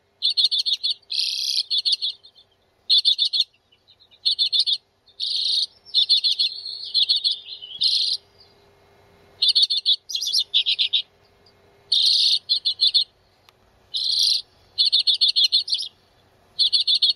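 Common redpolls calling: short bursts of rapid, high chattering notes, repeated again and again with brief pauses between them.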